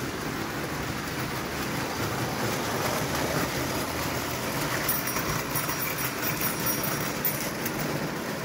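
0 gauge tinplate model trains running on metal track: a steady rumble and whir of wheels and motors. Faint high-pitched tones come in about five seconds in and stop about two seconds later.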